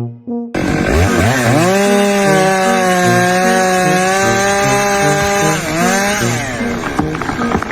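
A small engine revs up sharply, holds at high speed for a few seconds, then drops briefly and revs up again.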